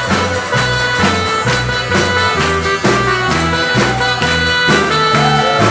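Instrumental passage of an upbeat worship band between sung lines: a steady drum beat, a moving bass line and held chords.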